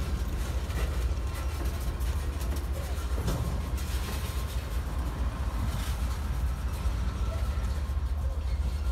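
CSX mixed freight train, diesel locomotives and cars, giving a steady low rumble during slow switching, with scattered light clicks.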